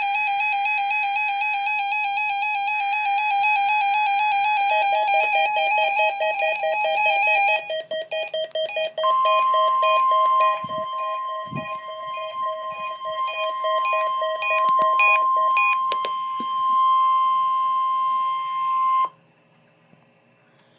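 NOAA Weather Radio alert tones: pulsing, warbling electronic beeps, then about nine seconds in the steady 1050 Hz warning alarm tone joins. The tone holds for about ten seconds and cuts off suddenly, leaving near silence.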